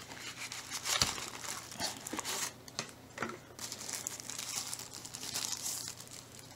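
Thin packaging wrap crinkling and rustling as it is pulled off a small accessory case, in irregular handling noises with a light knock about a second in.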